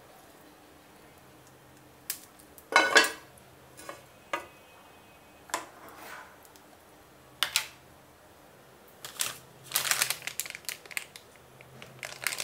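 Scattered short clinks and knocks of kitchen utensils and cookware being handled, the loudest about three seconds in and a quick cluster near the end, over a faint low hum.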